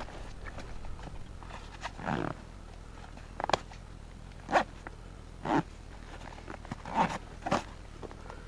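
A hiker breathing hard while climbing, with short, heavy breaths about once a second.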